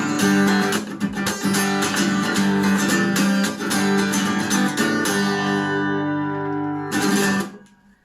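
Acoustic guitar strumming the closing chords of a song, a chord left ringing about five seconds in, then one last strum near the end that is cut off short.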